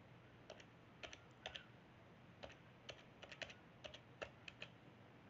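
Faint typing on a computer keyboard: a quick, irregular run of about twenty soft keystrokes as a password is entered.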